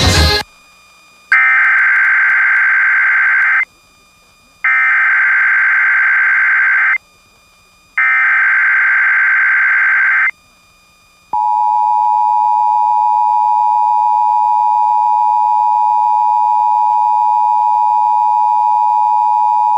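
Emergency Alert System tones broadcast over FM radio, opening a test tornado warning. Three bursts of SAME header data, each about two seconds with a second's gap, are followed about eleven seconds in by the EAS two-tone attention signal, a steady dual-tone buzz held for about eight seconds.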